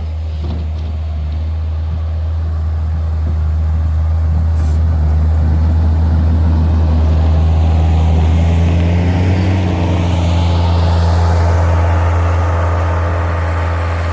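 Skid steer engine running steadily under load while clearing snow, growing louder through the middle and easing a little near the end.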